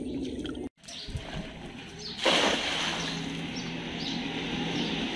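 A thrown cast net landing on pond water: a sudden splash about two seconds in that hisses away over about half a second as the weighted rim strikes the surface. Before it, water dribbles from the wet net as it is gathered.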